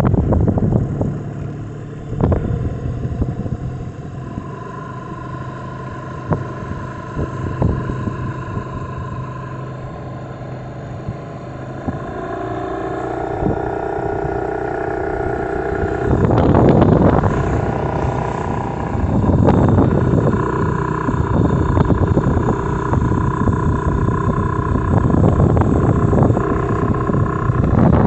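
Mariner 15 HP outboard motor running under way, rising in pitch and getting louder about halfway through as the boat speeds up. Gusts of wind on the microphone and water splashing at the bow come and go in the second half.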